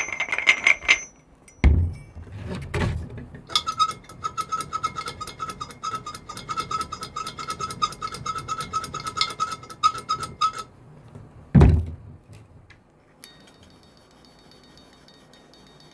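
Automotive water pump with a failing bearing being spun, giving several seconds of rapid rattling and grinding with a steady whine, a sign of a worn bearing. A few heavy thunks come before and after it.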